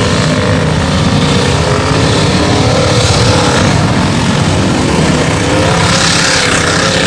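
Loud engine of a lifted, bobbed Jeep Cherokee XJ mud truck running hard under load as it plows through deep mud and water, its pitch wavering, with the churning spray of mud and water from the big tires.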